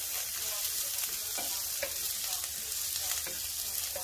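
Sliced onions, green chillies, ginger and curry leaves sizzling in hot oil in a wok, stirred with a wooden spatula that gives light, irregular taps and scrapes against the pan.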